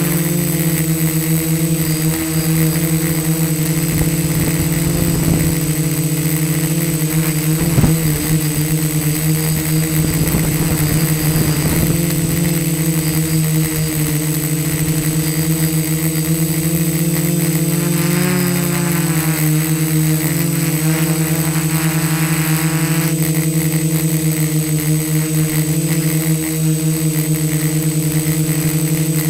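Four brushless motors and propellers of a DJI F450 quadcopter running steadily, a constant-pitched buzz picked up by the KeyCam #16 camera mounted on its frame. Gusts of wind rumble on the microphone between about four and twelve seconds in, with a brief knock near eight seconds.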